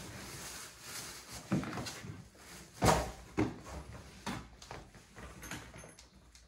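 Packing noises: rustling and a series of knocks and bumps, the loudest about three seconds in.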